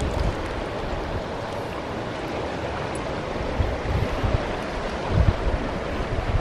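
Small sea waves washing steadily against a rocky shore, with wind buffeting the microphone in gusts over the second half.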